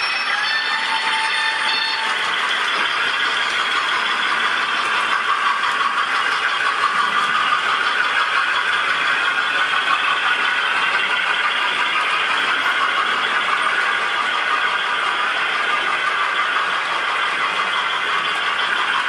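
Model railway train running along the layout's track with a steady rattle. A horn-like note from the train fades out in the first two seconds.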